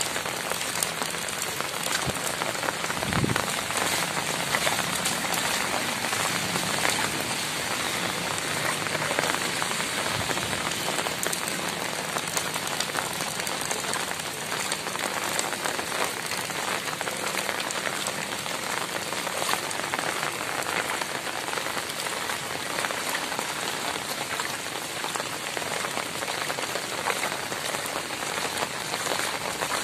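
Heavy rain falling steadily on a water-covered road, an even hiss of drops that does not let up. A single low thump comes about three seconds in.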